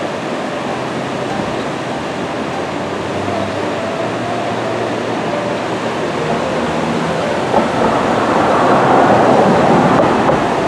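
Floodwater of the swollen Finley River rushing over a weir into churning rapids: a loud, steady rush of water that swells louder near the end.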